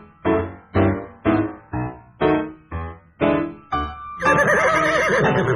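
Piano playing a steady, bouncing accompaniment of chords, about two a second; about four seconds in the piano stops and a horse whinnies loudly, its pitch wavering.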